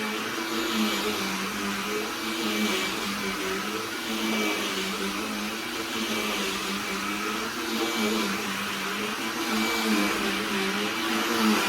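Cordless handheld vacuum cleaner running steadily: a motor hum with a slightly wavering pitch over the hiss of rushing air.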